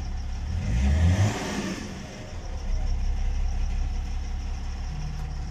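BMW diesel engine idling with its exhaust silencer removed, so it runs loud, given a brief rev about a second in before settling back to a steady idle. It is running just after its timing chain has been set.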